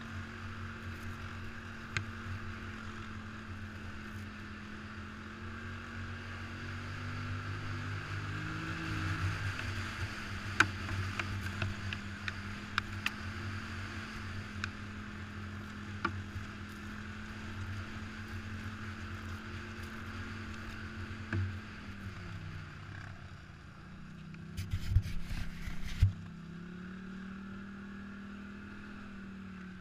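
ATV engine running steadily under throttle while riding, its pitch rising about eight seconds in and dipping then picking up again a little after twenty seconds. Scattered sharp knocks come from the machine jolting along the rutted trail, with a burst of louder thumps near the end, over a steady rush of wind.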